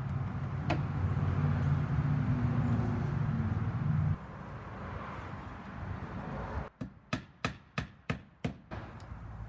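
A steady low hum that stops suddenly about four seconds in, then a hammer driving a siding nail into fiber cement HardiePlank siding: about seven quick, sharp taps in two seconds near the end.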